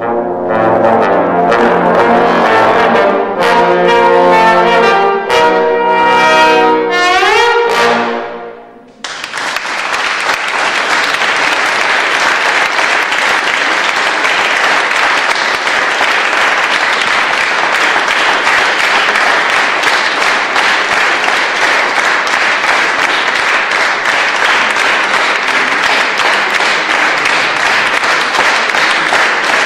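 A trombone quartet plays the closing bars of a piece, with rising slide glides into the final chord, and stops about nine seconds in. The audience then applauds steadily until the end.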